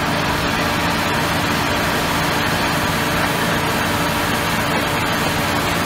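Ultrasonic cleaning tank with flowing water running: a steady machine hum made of several low tones over an even hiss.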